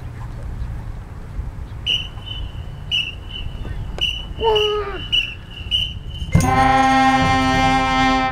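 Marching band brass and winds come in together on a loud, held opening chord about six seconds in. Before it comes a steady high tone that pulses about once a second, and a short falling sound.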